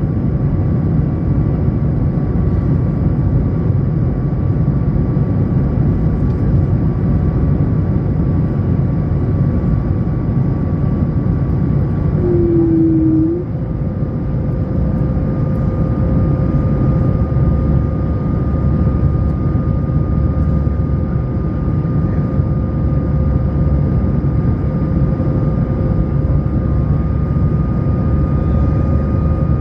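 Steady engine and airflow rumble inside an Airbus A220's cabin, with whining tones from its Pratt & Whitney PW1500G geared turbofans. About thirteen seconds in there is a short tone, then the level dips and the engine whine shifts pitch, as with a change in engine power.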